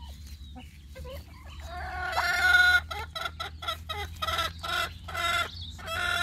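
White domestic duck quacking at close range, faint at first, then a loud long call about two seconds in followed by a quick run of short quacks, about three a second.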